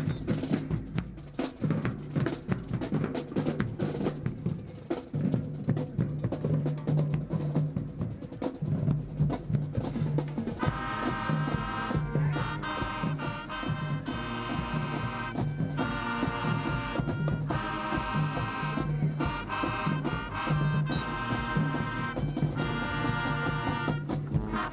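High school marching band: the percussion section plays alone for about ten seconds, then the horn section comes in with short repeated phrases over the drums.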